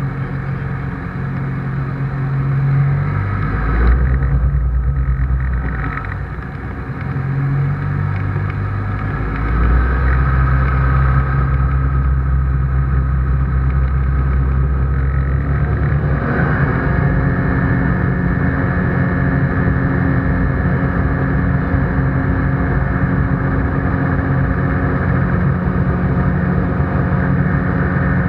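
ICP Bingo ultralight's propeller engine heard from inside the cockpit. It runs at low power with several changes in engine speed over the first ten seconds, then rises about sixteen seconds in to a steady, higher-pitched, higher-power note.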